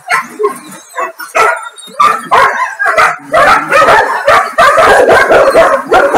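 Several dogs barking and yipping, with the barking growing denser and more continuous from about three seconds in.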